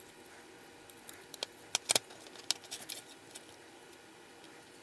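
A quick run of small sharp clicks and taps from small brass model-locomotive parts and wires being handled and fitted together, starting about a second in, the loudest near two seconds.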